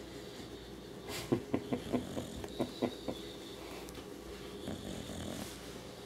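Sleeping dog snoring, with a quick run of about nine short sounds, four or five a second, between one and three seconds in.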